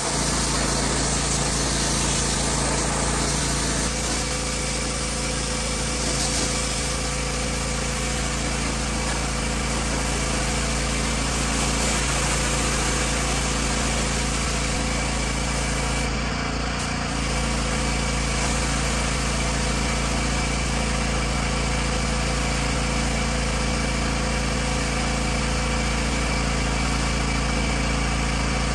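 Gas pressure washer's small engine running steadily, with the hiss of its high-pressure spray.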